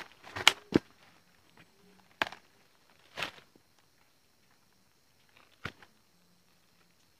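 Footsteps and rustling on forest-floor leaf litter: a few irregular crunches and crackles with pauses between them, the loudest in the first second.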